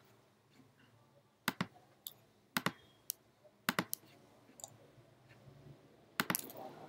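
Computer mouse and keyboard clicks: sharp single and paired clicks about a second apart, with a short quick cluster near the end.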